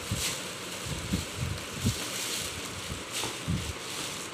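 Plastic wrapping crinkling and rustling as a bed study table is handled inside it, with a few dull bumps.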